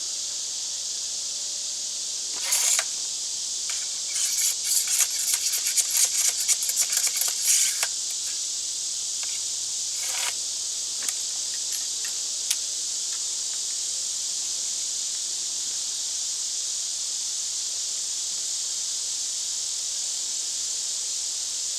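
Ramrod rattling and tapping in the smoothbore barrel of a reproduction 1847 Springfield Dragoon carbine as the wadding and round ball are rammed home: a short rattle, then a few seconds of quick metallic clicks and taps, then a few single taps. A steady high hiss runs underneath.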